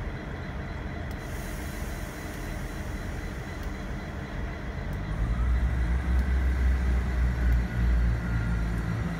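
Diesel freight locomotive engine running with a deep rumble that grows louder about halfway through, joined by a faint whine rising in pitch.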